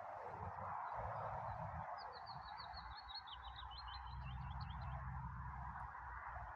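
A small bird singing a quick run of short, high, falling notes for about three seconds, over a steady hiss. A low rumble comes in toward the middle.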